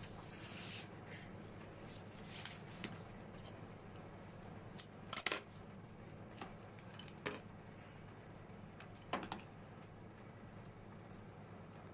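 Scattered short clicks and snips of florist's scissors and hand tools being handled on a worktable, the loudest cluster about five seconds in and another near nine seconds, over a steady low hum.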